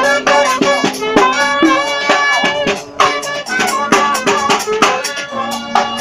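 Funky brass band playing live: brass horns holding and sliding between notes over a drum kit's steady beat with sharp snare and cymbal hits.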